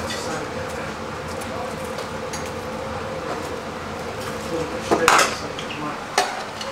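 Metal tongs clinking against a wire fryer basket and a steel tray as falafel balls are picked out, with scattered small clicks over a steady hum. A louder metal clatter comes about five seconds in, and a smaller one about a second later.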